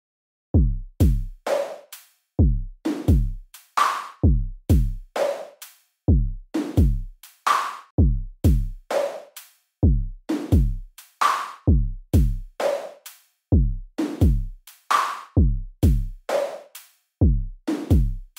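Electronic drum-machine beat at a steady tempo: deep kick drums that drop in pitch, alternating with sharper snare or clap hits, starting about half a second in.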